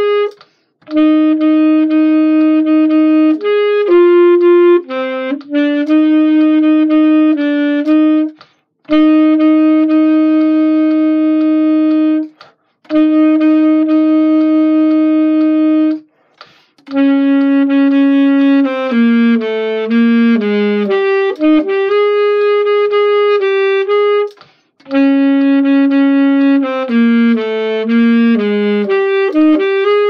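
Solo saxophone playing a slow melody of long held notes, in phrases broken by short pauses for breath. Some phrases close with quicker steps down through shorter notes.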